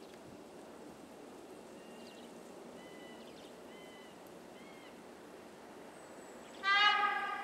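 Horn of a Pesa Elf electric multiple unit (EN76) sounding one loud blast near the end, a single pitch that starts sharply and trails off. Before it there is only a faint steady hiss and a few short bird chirps.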